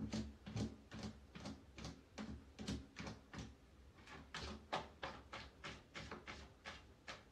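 A cat digging in cat litter inside a hooded litter box: a steady run of short scraping strokes, about three a second.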